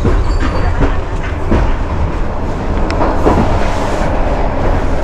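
A passenger train running on the line, heard from inside a carriage: a steady loud rumble with the wheels clacking over rail joints now and then.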